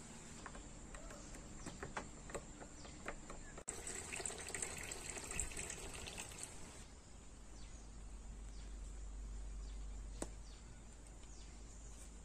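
Liquid poured in a thin stream into a glass of chopped cucumber and dates, splashing for about three seconds starting around four seconds in, after a few light clicks.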